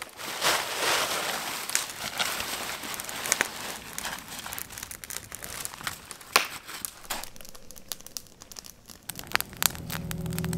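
Crinkling and rustling of thin camping-gear fabric, first a sleeping pad and then an ultralight tent being handled and pitched, with many sharp clicks. Music comes in near the end.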